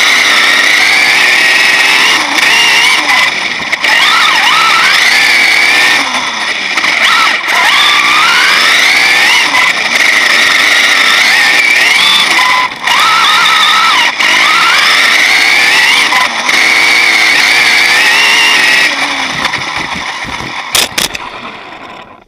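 Onboard sound of a Thunder Tiger EMTA RC monster truck driving: its brushless electric motor and geared drivetrain whining, pitch rising and falling with the throttle, with tyre and gravel noise. Near the end the whine fades, a couple of sharp knocks follow, then it goes quiet.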